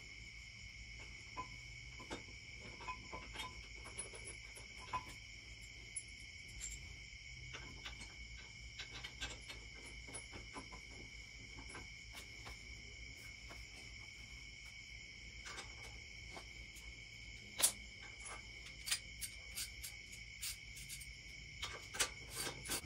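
Crickets chirring steadily, with scattered short metallic clicks and clinks from hand tools and parts handled at a truck's front wheel hub; one sharper click stands out near the end.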